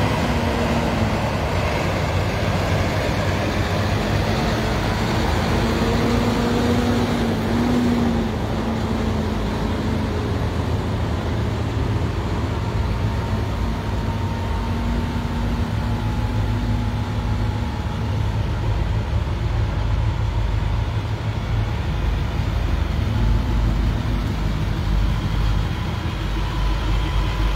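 Heavy tow trucks' engines running as they roll past in a steady stream: a continuous low rumble, with a few held tones rising and fading over it.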